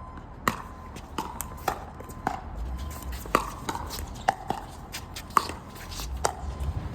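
Pickleball rally: about ten sharp pops of the hollow plastic ball off paddles and the court at irregular spacing, over a low wind rumble on the microphone.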